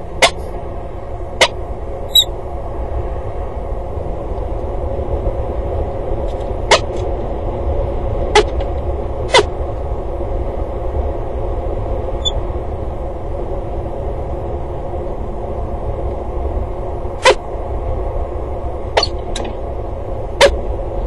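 Steady low rumble and hiss of wind and distant background noise on an outdoor webcam microphone, with about ten sharp clicks or taps at irregular intervals.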